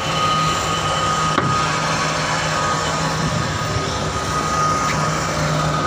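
Steady drone of ship machinery, with a constant high whine over a low hum.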